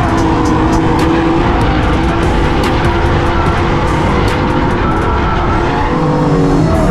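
Drift cars sliding in tandem: engines running hard at steady revs, with tyres skidding and squealing. Heard from inside the car, with sharp clicks scattered through.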